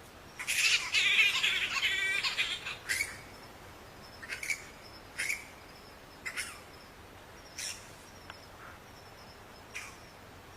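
Bat squeaks and chittering. A loud burst of rapid, high chattering comes in the first couple of seconds, then six short, separate squeaks spaced one to two seconds apart.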